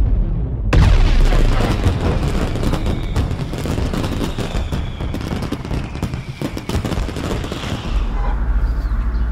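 Fireworks sound effect: a boom about a second in, then dense crackling that thins out, giving way to a low rumble near the end.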